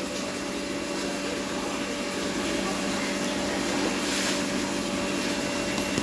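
A steady machine hum with an even hiss, holding the same pitch throughout, with a brief soft noise about four seconds in.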